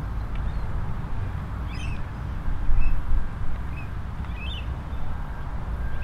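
Wind rumbling on the microphone in gusts, strongest about halfway through, with short bird chirps several times above it.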